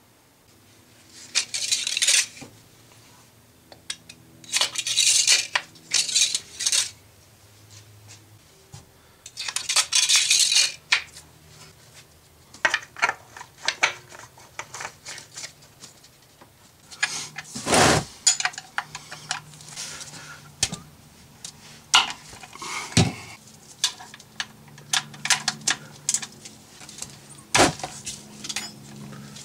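Hand tools and metal parts clinking and clattering, with several short bursts of rustling early on and one loud knock midway. A ratchet wrench clicks near the end.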